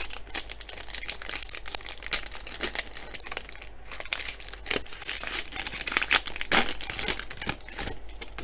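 A trading card pack's foil wrapper crinkling and tearing as it is opened and handled, with irregular sharp crackles throughout.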